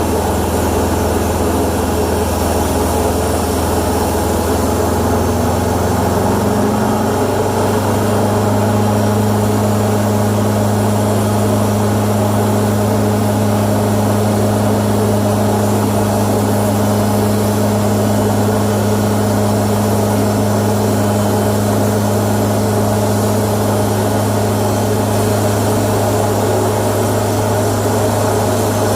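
Aircraft tow tug's engine running steadily as it tows the airliner, its pitch rising slightly about seven seconds in and then holding.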